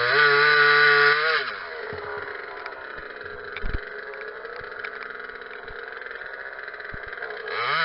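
Small two-stroke top-handle chainsaw running at high revs, then dropping back to a quieter idle about a second and a half in. A short thump comes a little before the middle, and the saw revs up again near the end.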